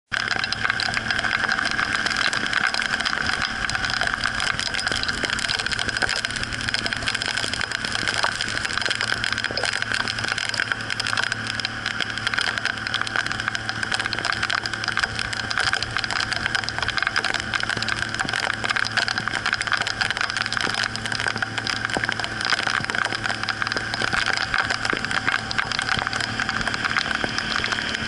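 Outboard motor of a river canoe running steadily at cruising speed, with a dense crackle of rain and spray striking the boat.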